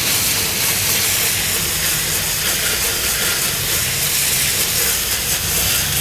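Steady hiss of water jetting from a garden hose with a thumb pressed over its end, the spray striking the fins of an air conditioner's outdoor condenser coil as it is rinsed clean.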